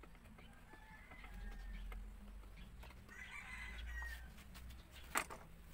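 A rooster crowing faintly, one call rising into a longer crow, with a single sharp click about five seconds in.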